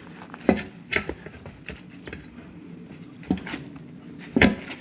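Steel tire spoons clinking and scraping against a wheel rim in irregular knocks as the tire bead is levered off a little at a time.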